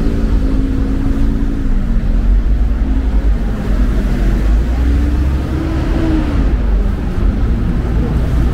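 A motor vehicle's engine running close by over street traffic noise. Its hum drops in pitch about two seconds in, rises again around five to six seconds, then falls.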